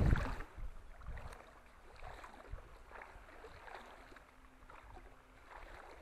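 Faint lapping of small wind-driven ripples on reservoir water, with soft, irregular little splashes.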